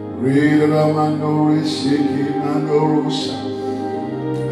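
A man's voice praying through a microphone in a drawn-out, sing-song chant, long held notes broken by breathy 's' sounds, over steady background music.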